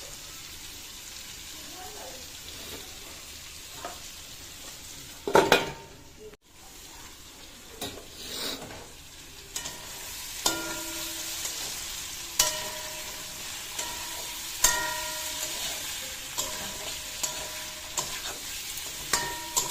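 Shelled snails frying in oil in a wok with a steady sizzle, and one loud knock a little past five seconds. From about halfway, a spatula stirs them, with repeated sharp knocks and scrapes against the shells and the wok, each leaving a brief ring.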